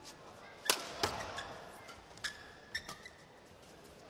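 Badminton rackets striking a shuttlecock in a fast doubles rally: several sharp hits, some less than half a second apart, with short high squeaks of shoes on the court.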